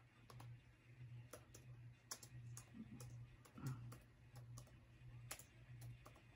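Near silence with faint, irregular light clicks and taps, about a dozen scattered through, over a low steady hum.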